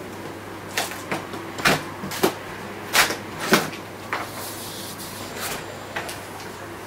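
Cardboard aquarium packaging being opened and handled: a string of irregular knocks, taps and scrapes as the box flaps are pulled open, the loudest about three seconds in, with a short rustle of packing material about four seconds in.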